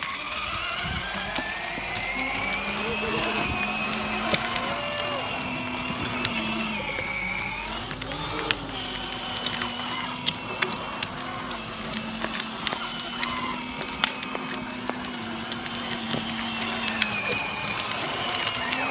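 Electric drive motors of a battery-powered BMW i8 ride-on toy car whining as it drives, the pitch climbing steadily over the first few seconds and then holding fairly level, with scattered clicks throughout.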